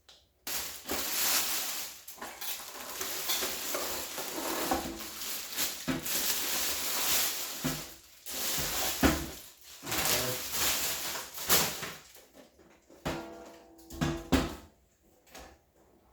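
Packaging rustling and crinkling in long stretches as contents are handled and unpacked, followed by a few scattered knocks in the last few seconds.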